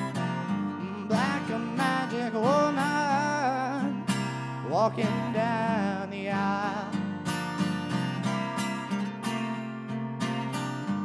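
Acoustic guitar strummed in a steady rhythm, with a young man singing over it. The voice drops out about halfway through, leaving the guitar alone.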